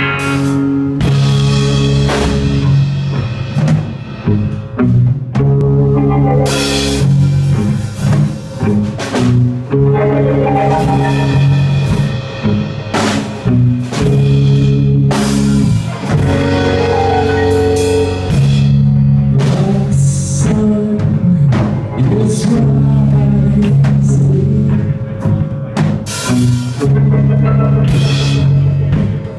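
A rock band playing live, loud throughout: a drum kit with repeated cymbal hits over guitar and held low notes.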